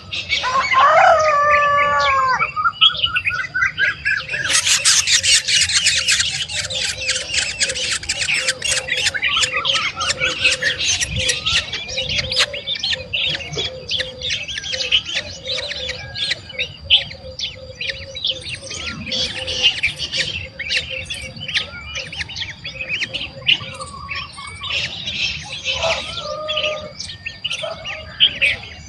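Small birds chirping in fast, dense runs of high notes, with a few gliding, wavering calls in the first couple of seconds.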